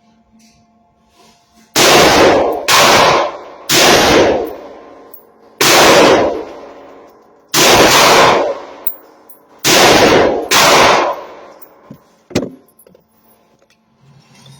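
Seven shots from a 7.5-inch Del-Ton AR-15 pistol chambered in 5.56, fired at an uneven pace about one to two seconds apart, each trailing off in a long echo. A single faint sharp click follows about a second and a half after the last shot.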